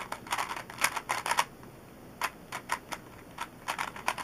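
Plastic 3x3 Rubik's Cube layers being turned quickly in a speedsolve: rapid clacking clicks in quick runs, with a short pause about two seconds in before the turning resumes.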